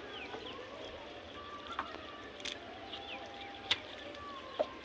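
Outdoor river ambience: short bird chirps over a steady hiss, with a few sharp clicks.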